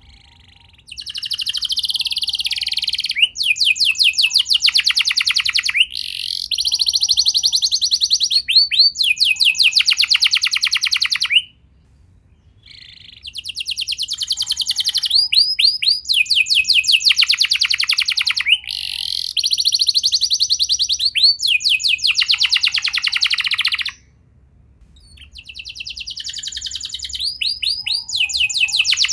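Canary singing long phrases of rapid trills and rolls, with pauses about a third and two-thirds of the way through.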